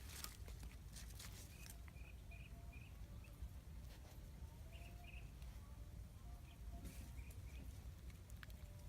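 Faint short bird chirps, three in quick succession and later two more, over rustling and a low wind rumble.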